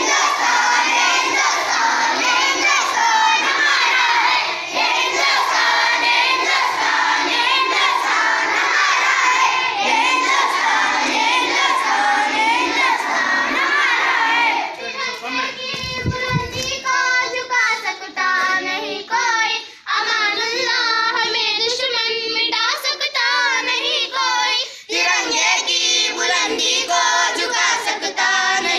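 A large group of children singing together in a dense mass of voices; about halfway through it gives way to a small group of children singing, their separate voices clearer.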